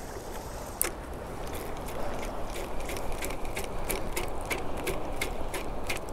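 Shimano Stradic 5000 spinning reel being cranked to retrieve a lure, a steady run of quick light clicks, with one sharper click about a second in.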